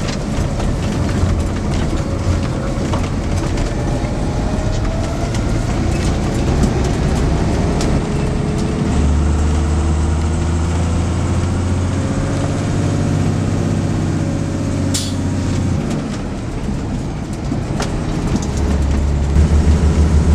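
Kenworth K108E logging truck's 615-horsepower diesel engine pulling on the road, heard from inside the cab as a heavy low drone whose pitch rises and falls as it works through the gears of its 18-speed manual gearbox.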